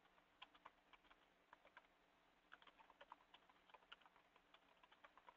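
Faint typing on a computer keyboard: irregular key clicks, several a second, with short pauses between runs.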